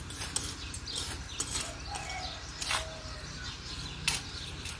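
Small metal hand trowels scraping and clicking in dry, stony soil as earth is drawn up around young potato plants, with about five sharp scrapes spread irregularly through the moment. Birds chirp faintly in the background.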